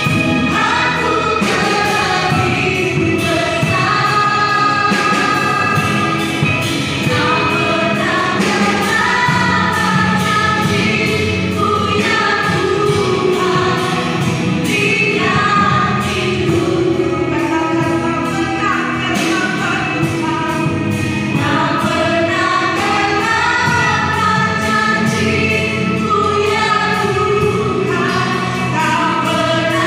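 Women's choir singing a gospel song, several voices holding notes together in harmony.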